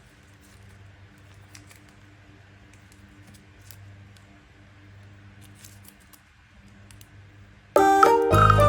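Faint clicks and rustles of packaging being handled over a low, steady hum; loud music starts abruptly near the end.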